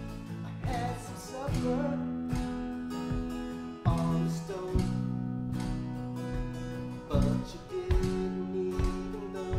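Acoustic guitar strummed together with a bass guitar, the bass holding low notes that change every second or so.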